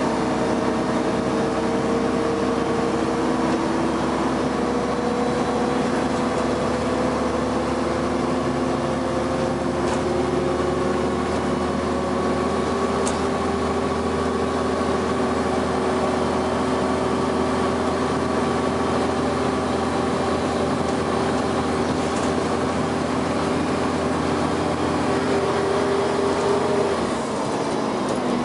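Dennis Arrow double-deck bus heard from on board, its engine and driveline pulling steadily with a whine that rises slowly in pitch as the bus gathers speed. The pitch drops away shortly before the end.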